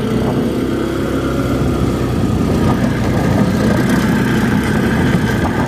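Off-road vehicle engine running steadily under way, with an even low drone.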